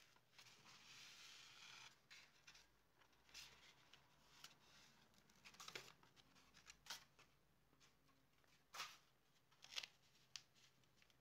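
Faint paper handling: a soft rustle as a patterned paper sheet is peeled from its white backing, then a few sharp paper crackles and taps as it is laid onto a card cover and pressed flat.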